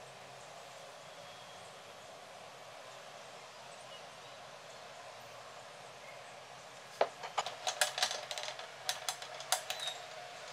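Butter and chocolate pancake batter sizzling steadily in a hot non-stick frying pan. About seven seconds in, a quick run of sharp, irregular clicks and crackles starts.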